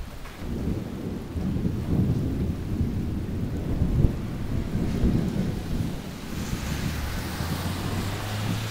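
Thunder rumbling low and continuously during a thunderstorm, peaking about four seconds in, with a hiss that swells in the second half.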